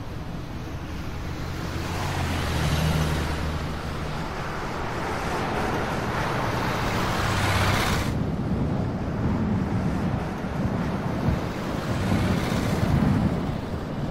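Dark ambient soundtrack of rushing, wind-like noise that swells and fades in waves, with a low hum underneath for a few seconds; the upper part of the rush cuts off suddenly about eight seconds in.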